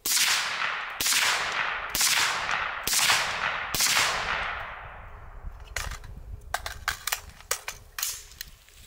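Five suppressed 5.56 rifle shots from an AR-style rifle fitted with a Yankee Hill Machine Turbo T2 suppressor, fired about one a second, each ringing out in a long fading echo. After the last shot comes a scatter of light clicks and clinks.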